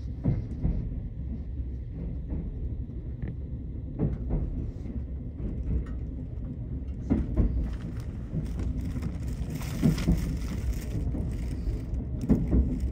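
Cabin noise inside a 381-series electric limited express train: a steady low rumble with irregular knocks, and a hiss from about eight to eleven seconds in.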